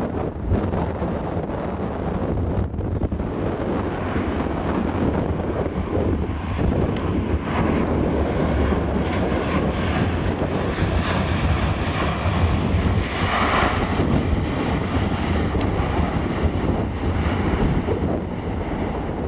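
Lockheed C-130H Hercules's four Allison T56 turboprop engines and propellers droning through a low approach and touch-and-go on the runway, with a steady low hum underneath. The sound swells to its loudest about two-thirds of the way through as the aircraft passes close.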